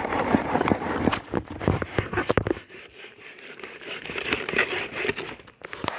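Washing machine running its wash cycle, water and clothes churning in the tub with crackling, splashy noise that eases off after a couple of seconds.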